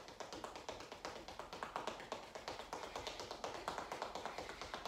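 Sneakers tapping rapidly on a tiled floor, an even patter of several quick steps a second, from a fast-feet running-in-place drill.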